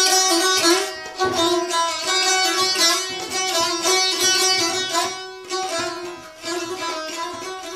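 Saz (Azerbaijani long-necked lute) played solo: a fast strummed instrumental passage with a steady drone note ringing underneath the melody.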